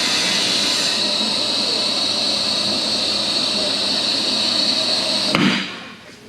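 Car lift lowering a car: a steady, high rushing hiss that cuts off with a knock near the end as the lowering stops.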